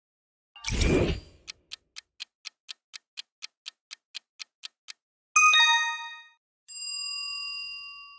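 Quiz sound effects: a whoosh, then a countdown timer ticking about four times a second for some three and a half seconds, then a bright chime and a softer ding, as for revealing the answer.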